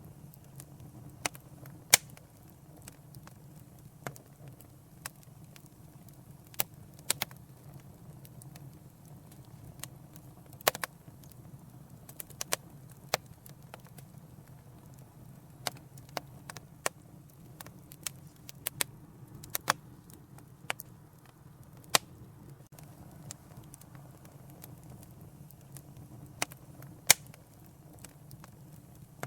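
Wood fire in a fireplace crackling, with sharp, irregular pops about once or twice a second over a low, steady rumble.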